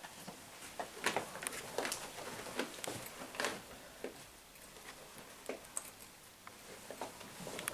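Faint rustles and light clicks of people moving and handling things in a small room, coming irregularly, a little louder about one second and three and a half seconds in.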